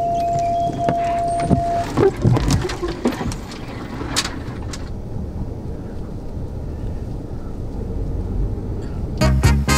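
Inside a car, likely a Jeep Grand Cherokee: a steady tone cuts off about two seconds in, a few clicks and knocks follow, then the steady low rumble of the car running. Music comes in near the end.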